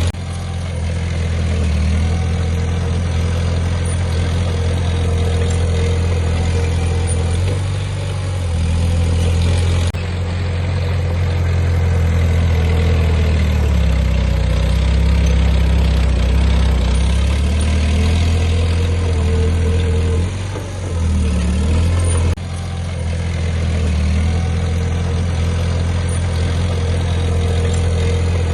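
Diesel engine of heavy earthmoving machinery running, a strong low hum whose pitch dips and rises now and then; the sound changes abruptly twice, about ten and twenty-two seconds in.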